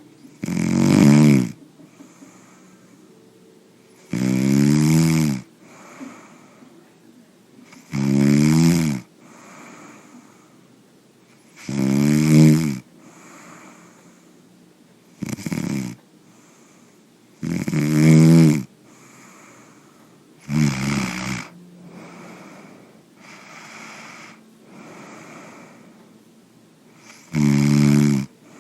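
Snoring: eight loud snores, each about a second long, coming every few seconds, with a longer gap before the last one filled only by faint breaths.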